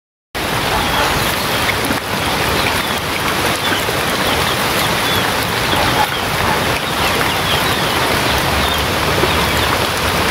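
Steady rain falling, a dense even hiss.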